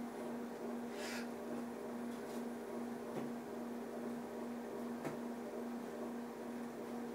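A steady hum over a low background hiss, with a brief higher hiss about a second in and a few faint ticks.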